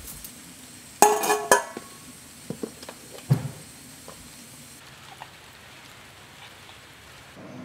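A stainless steel pet bowl clatters about a second in, then a few light knocks and scrapes as wet cat food is spooned out of a plastic tub, followed by faint quiet.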